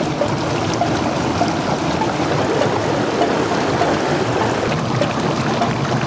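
Mountain stream rushing and splashing over rocks, close to the water: a loud, steady wash of water noise.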